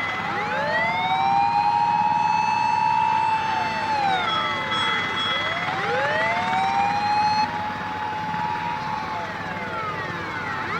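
Emergency vehicle siren wailing: the pitch climbs slowly, holds for a few seconds, then glides back down, twice over, starting a third rise at the end.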